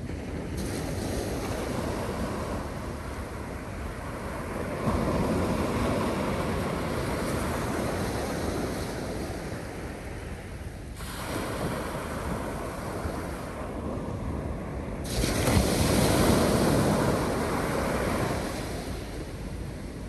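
North Sea surf: waves breaking and washing up the beach in a steady wash, with a larger breaker about a quarter of the way in and a louder one about three-quarters of the way through. Wind hisses across the microphone, coming and going in gusts.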